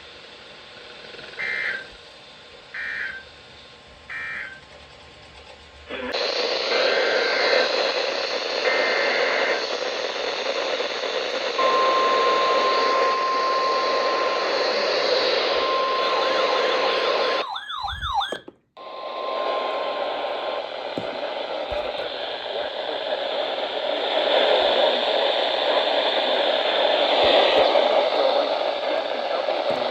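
Emergency Alert System broadcast audio. Three short data beeps sound in the first few seconds, which mark the end of the message. Then a loud hiss of radio reception comes in, carrying two more short data bursts and a steady alert tone near 1 kHz that breaks off twice, with a brief garbled dropout partway through.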